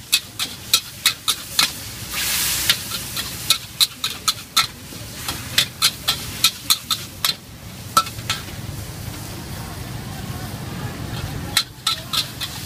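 Metal ladle clanking and scraping against a steel wok as noodles and vegetables are stir-fried, over a sizzle, with a burst of hissing about two seconds in. The clanking stops for a few seconds after the middle, leaving a low rumble, then starts again near the end.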